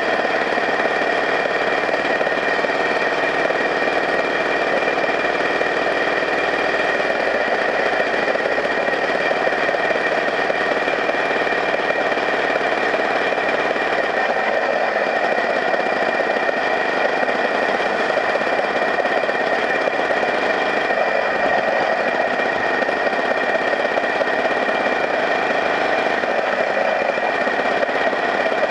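A vehicle's engine running steadily while it drives along, with road noise and a steady high whine over the drone, heard from on board.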